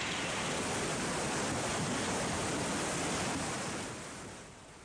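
Steady rushing roar of a muddy mountain river in full flood, fading away near the end.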